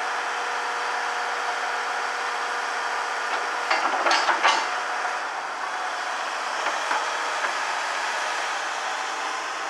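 Hitachi UH07 hydraulic excavator's diesel engine running steadily under operation. A quick cluster of loud knocks comes about four seconds in, and a single lighter knock near seven seconds.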